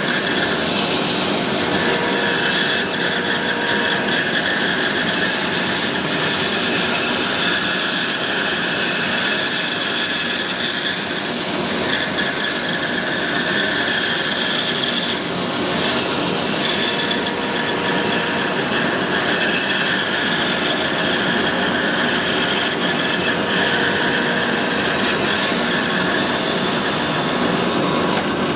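Bandsaw with a 1/4-inch, 6-teeth-per-inch blade running and sawing steadily through thick wood as it cuts a 1.5-inch round dowel out of a board.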